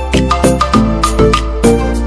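Background music with a steady beat of about two strikes a second over a sustained bass and pitched instrument notes.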